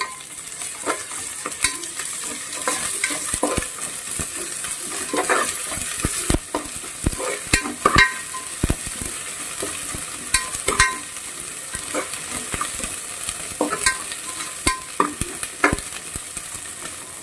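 Sliced onions, green chillies and curry leaves frying in hot oil with freshly added ginger-garlic paste, sizzling steadily. A metal spoon stirs them, scraping and clinking against the metal pot at irregular intervals.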